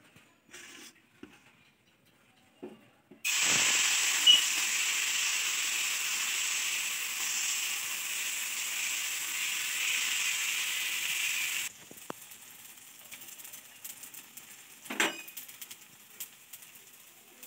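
Semolina (suji chilla) batter sizzling on a hot, oiled iron tawa as it is ladled on and spread. The loud sizzle starts suddenly about three seconds in and drops off sharply near twelve seconds to a faint hiss with a few clicks of the steel ladle. Before it, the ladle clicks faintly in the steel batter bowl.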